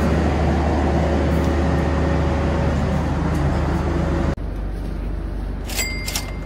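Loud steady drone of a standing passenger train's diesel engines, with a low hum under it. It cuts off abruptly about four seconds in, giving way to the quieter hum of the carriage interior, with two sharp clicks near the end.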